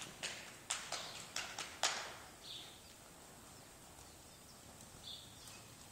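Horse's hoofbeats on arena footing: a run of about six sharp, irregular strikes in the first two seconds, then fading to quiet.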